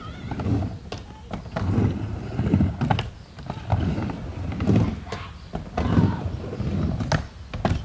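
Skateboard wheels rumbling across a halfpipe ramp, swelling and fading about once a second as the skater rides back and forth, with scattered sharp knocks.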